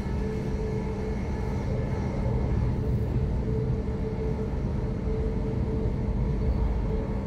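Electric passenger train running at speed, heard from inside the carriage: a steady rumble of wheels on rails with a steady low hum over it.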